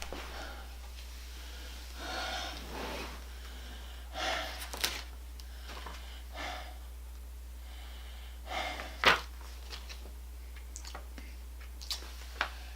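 A man breathing out heavily several times while he works, with a sharp click about nine seconds in and a few light taps near the end.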